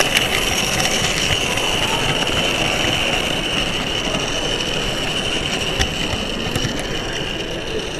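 Model locomotive running along its track, heard from on board: a steady motor whine with a few sharp clicks as the wheels cross rail joints and run onto the turntable.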